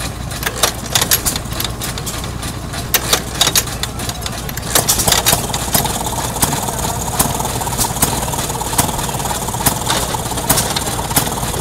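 1930 Maytag washing machine's gasoline engine being kick-started with its foot pedal: irregular sharp pops at first, then it catches about five seconds in and runs steadily, with a sharp pop every second or so.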